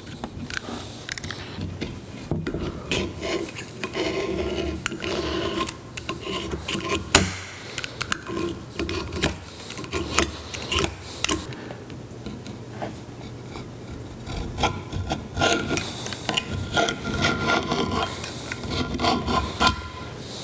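Razor blade trimming a Turcite wear strip flush against the cast-iron edge of a lathe cross slide: a run of irregular scraping and rubbing strokes as the blade shaves the plastic strip. There is one sharp click about seven seconds in.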